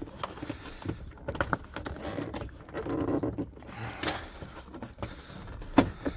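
Scattered clicks and knocks of hard plastic trim and parts being handled and worked loose on a pickup's steering column. There is a short rub about three seconds in and a sharp click near the end.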